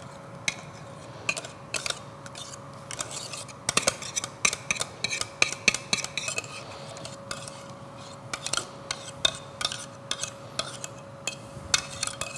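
A metal spoon clinking and scraping irregularly against a stainless steel bowl while thick ashta cream is scooped out, over a faint steady hum.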